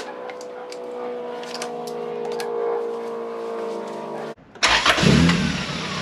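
A Honda G23-swapped four-cylinder engine cranked by the starter near the end, catching within about a second, flaring up and settling into a steady idle. Before the start there is a steady hum with a few light clicks.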